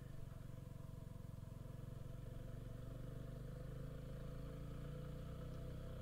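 Motorcycle engine running steadily at low road speed, an even low hum with a fine rapid pulse.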